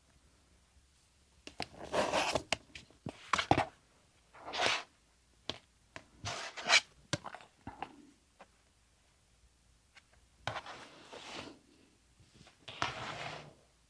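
Rotary cutter slicing through layered cotton fabric on a cutting mat in about six short rasping strokes, with sharp clicks between them from the cutter and the acrylic template being shifted.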